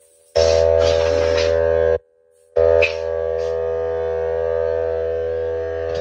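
Electric pressure washer motor running with a steady whine and hum as the trigger is squeezed. It cuts out briefly about two seconds in and starts again, with some spray hiss over it.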